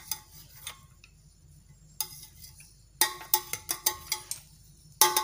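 Metal slotted spatula clinking and scraping against a metal pot while turning over cooked rice: sharp clicks, a few near the start, one at about two seconds, a quick run of them around three to four seconds in, and more near the end.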